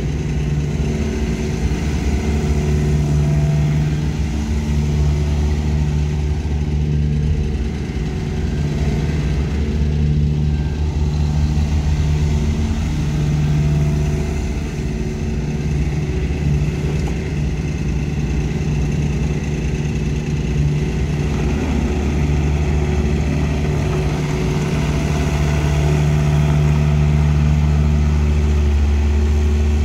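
Takeuchi TB240 mini excavator's diesel engine running under working load. Its low note wavers every few seconds as the boom, swing and tracks are worked.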